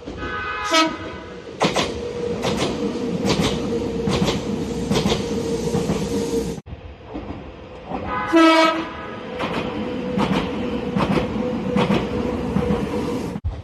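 Electric express train running over rail joints with a steady clickety-clack and hum, giving a short horn toot just under a second in. After a cut it gives a second short toot midway.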